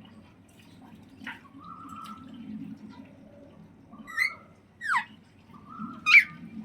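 Alexandrine parakeet calling: a few soft short calls and a held whistle-like tone, then three sharp calls in the second half. One of them slides steeply downward, and the loudest comes just before the end.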